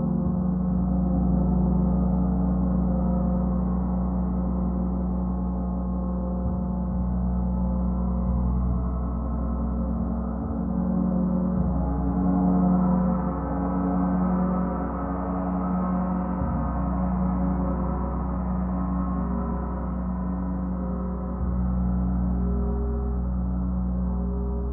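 A gong sounding continuously: a dense, sustained drone of many overlapping tones, with a slow pulsing in its lower tones.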